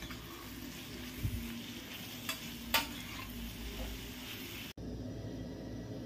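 Spatula stirring chicken liver and onions frying in a stainless steel pan, over a steady sizzle, with two sharp clicks of the spatula against the pan about halfway through.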